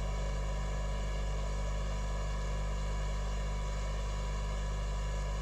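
Hot air rework station blowing steadily on a circuit board: a constant electrical hum with the even rush of its airflow.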